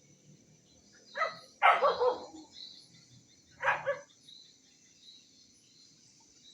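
Indonesian village dog (anjing kampung) barking three times, the middle bark the longest and loudest.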